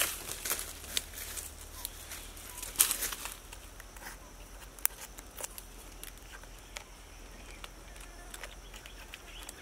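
Rotten wood crackling and crumbling as fingers and a thin stick pick and pry at a decayed log: scattered small clicks and snaps, busiest in the first three seconds with the loudest snap near three seconds in, then sparser.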